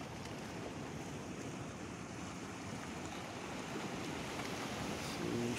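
Steady rushing noise of wind and water, with nothing standing out.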